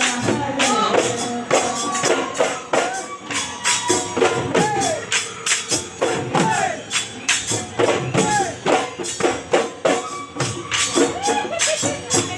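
Live Assamese Bihu music: dhol drums beaten in a steady rhythm with clashing taal cymbals, and a melody with sliding notes over the top.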